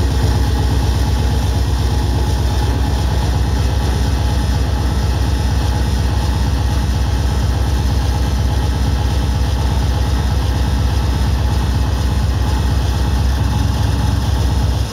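Hardcore/speedcore electronic music played loud over a club sound system: a fast, unbroken run of kick drums with heavy low end under a dense wash of noisy sound.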